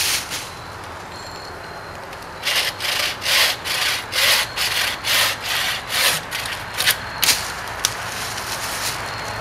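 Wooden-framed bucksaw cutting a small dry hardwood limb: after a short pause, quick back-and-forth rasping strokes, about two to three a second, for some five seconds, ending in a couple of sharp clicks as the saw stops.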